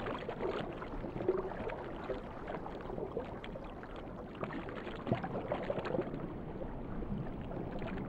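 Muffled underwater water sounds: a soft, steady swishing and gurgling with faint ticks.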